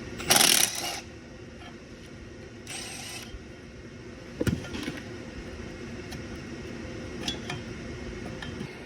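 Small engine being taken apart by hand: a loud short burst of noise about half a second in and a shorter one near three seconds, then scattered metallic clicks and knocks from tools and parts, over a steady background hum.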